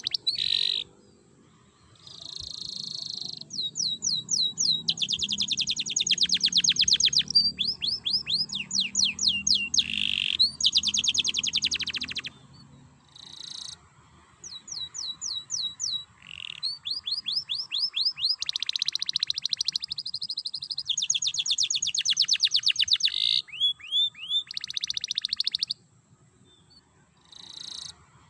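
Domestic canary singing: long, fast trills and runs of repeated sweeping notes in phrases several seconds long, broken by a few short pauses.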